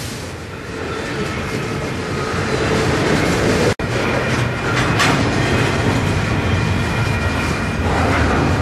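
Double-stack intermodal freight train rolling past close by, its steel wheels clicking and rattling over the rail, growing louder. The audio drops out for an instant about four seconds in.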